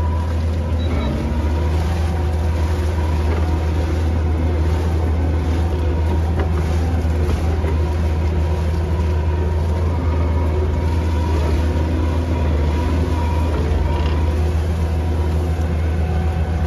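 A vehicle engine running steadily: an even low drone with a faint steady whine on top.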